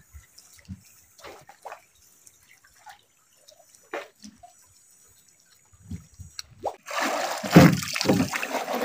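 Water: a few scattered drips and small knocks, then from about seven seconds in much louder splashing and sloshing.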